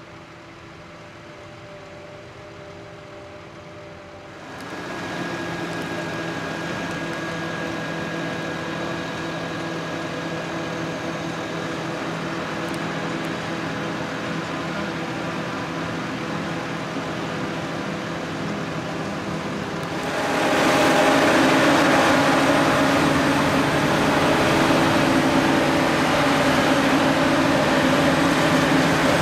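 Heavy diesel tractor and Claas Jaguar 860 self-propelled forage harvester running under load while chopping maize, a steady machinery drone with a few held tones. It steps louder about four seconds in and much louder about twenty seconds in, where the harvester is close.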